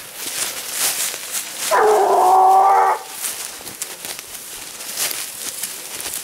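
A leashed scent hound gives one long baying howl, held at a steady pitch for just over a second, while working a wild boar scent trail. Brush crackles underfoot around it.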